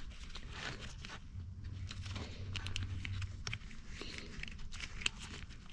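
Corrugated plastic split loom tubing crinkling and clicking in gloved hands as it is worked back over a wiring harness. It makes a run of small, irregular clicks and rustles.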